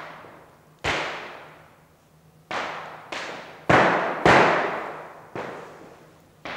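Dancers' shoes stamping on the floor in sevillanas footwork: about seven sharp strikes at an uneven pace, the two a little after the middle the loudest, each ringing on in a reverberant room.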